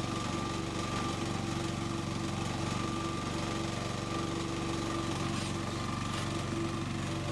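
Small engine of a 760 kg mini excavator running steadily, with a steady whine held over it.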